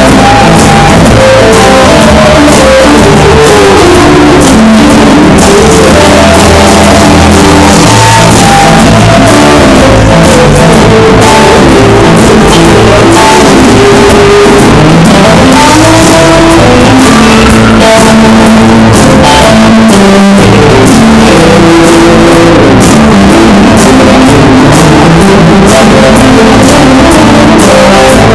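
Loud rock band playing an instrumental passage: a guitar melody moving up and down over drums and bass.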